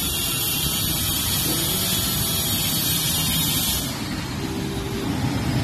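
Heavy rain on a flooded road with traffic moving through the water: a loud, steady hiss over a low rumble of vehicles. The high hiss drops off suddenly about four seconds in.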